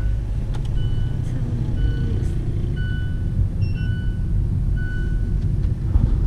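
Steady low road and engine rumble heard from inside a moving car, with a short electronic beep repeating about once a second.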